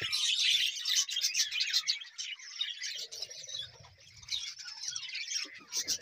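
A flock of budgerigars chirping all at once in a constant high chatter, densest over the first couple of seconds and thinning out a little past the middle.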